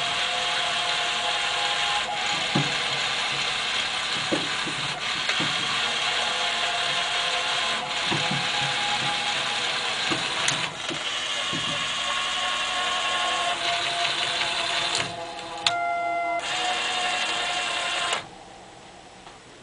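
Motor and gear drive of a Gemmy animated floating Grim Reaper prop running as it moves the figure up and down: a steady mechanical whirr with a faint whine and irregular clicks, cutting off suddenly shortly before the end.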